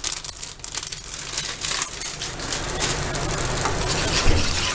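Metal utensil clinking and scraping against a cooking pot in many quick clicks while it is stirred, with a hiss of the pot that grows louder toward the end.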